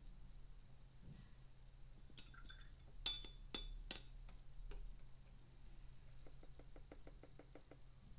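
Paintbrush clinking against the rim of a water jar several times, three of the clinks loudest and close together, followed by a quick run of faint ticks.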